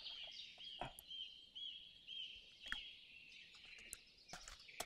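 Faint, repeated high chirps of a bird, about two a second, with a few light clicks and taps between them.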